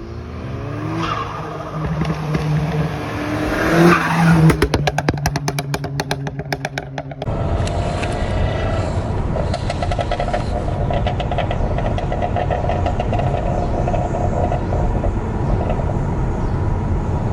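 Turbocharged four-cylinder engine of a Mk6 Volkswagen GTI running on a freshly fitted K04 turbo. It revs up and down, then gives a rapid chattering run of pulses. About seven seconds in the sound changes abruptly to a steady engine drone.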